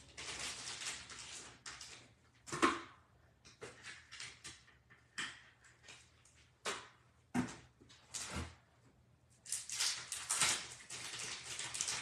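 Irregular rustling and scraping stretches broken by a few short knocks, as things are handled off camera in a small room.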